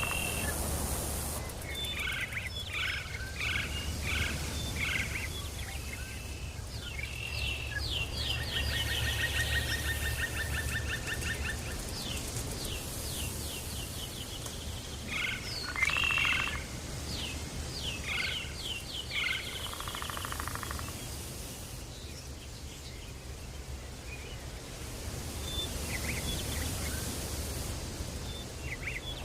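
Jungle soundscape: a chorus of animal calls, chirps repeated in quick series and a long trill, with a high hiss that comes and goes and a steady low rumble underneath.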